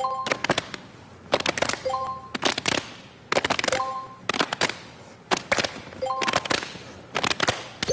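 Rapid clusters of hand claps and slaps kept in rhythm for a clapping game, each cluster followed by a short electronic chime, repeating about every two seconds.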